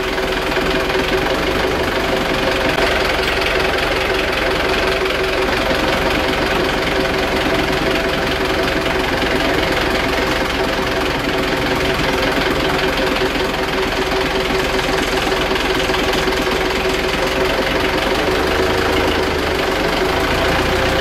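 Truck-mounted crane's engine running steadily, with a high, even whine over it while it holds a hanging ship's propeller.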